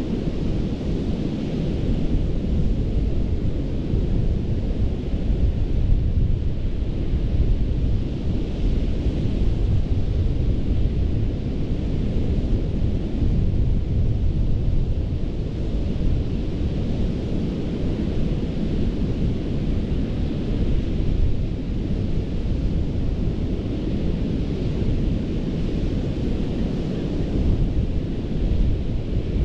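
Gulf of Mexico surf on a sandy beach: a steady low rumble of waves, with the hiss of breaking water swelling and fading every several seconds.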